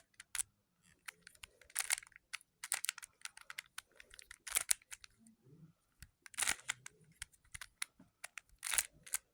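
A plastic Rubik's cube being turned by hand: short bursts of clicking and clacking as its layers are twisted, with brief pauses between bursts.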